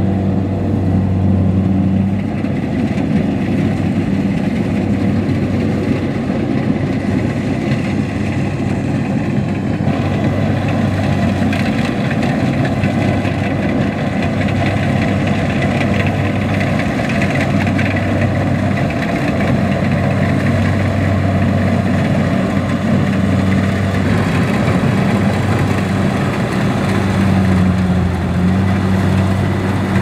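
Kubota DC-70 combine harvester's diesel engine running at a steady working speed while the machine cuts rice, a constant low hum with no let-up.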